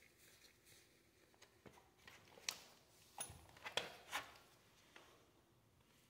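A few light clicks and knocks of hand tools and brake parts being handled, bunched from about two and a half to four seconds in.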